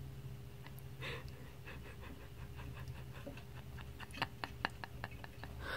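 Bearded dragon's claws clicking and scratching against the mirror and glass of its tank: a quick run of light clicks, several a second, loudest about four seconds in, over a steady low hum.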